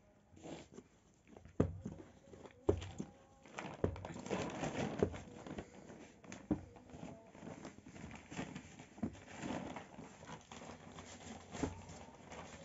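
Hands kneading and pressing a lump of yeast bread dough on a flour-covered surface: irregular soft thumps and sticky squelching, with rustling from the flour.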